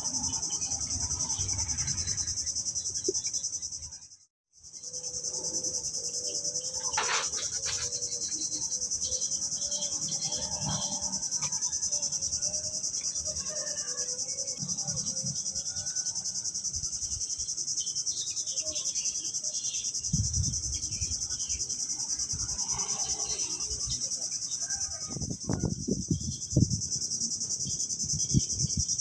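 Steady, high-pitched chorus of insects, with a brief total break about four seconds in. A few low knocks and rustles come in the last third.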